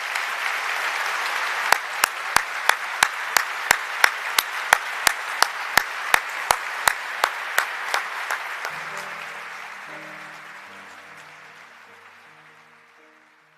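Congregation applauding, with loud sharp claps falling into a steady beat of about three a second between about two and eight seconds in. The applause then fades away as soft instrumental music begins, about nine seconds in.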